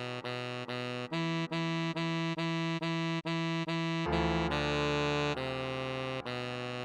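Computer-rendered tenor saxophone melody playing short repeated notes at an even pulse over held synthesized keyboard chords; about four seconds in the chord changes and a low bass note comes in.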